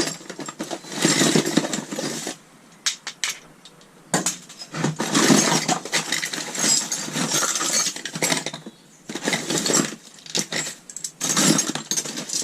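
Small pieces of metal scrap (brass fittings, padlocks, screws) clinking and rattling in irregular bursts as they are rummaged through in a box and sorted by hand.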